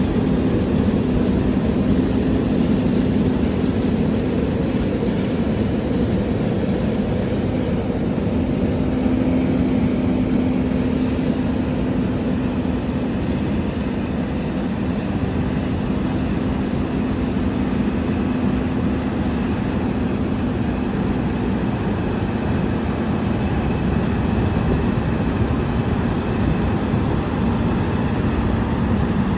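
Combine harvester running steadily under load while harvesting wheat: a constant engine drone with a steady low hum.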